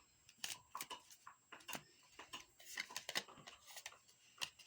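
Faint handling of tarot cards: a scatter of light, irregular taps and flicks as cards are drawn and laid down.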